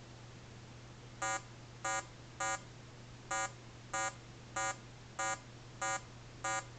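Throw meter's sound alarm: nine short buzzy electronic beeps about 0.6 s apart, starting about a second in. They signal that the measured control-surface throw has gone past the 15 mm maximum alarm limit.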